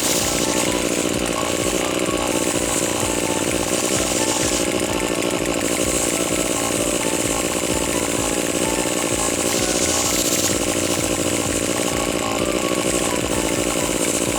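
Small two-stroke engine running steadily at high speed, as on a brush cutter or chainsaw, with no change in pitch.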